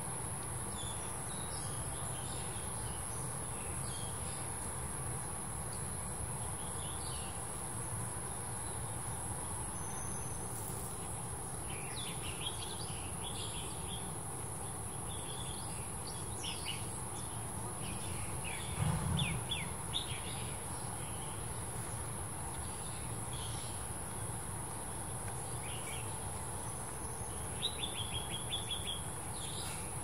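A continuous high-pitched insect trill with small birds giving short chirps now and then, busier in the second half, and a quick run of repeated chirps near the end. A low rumble sits underneath.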